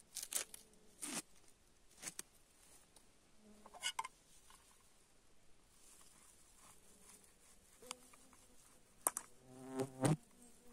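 Flies buzzing in short passes, with several brief sharp noises, the loudest two near the end.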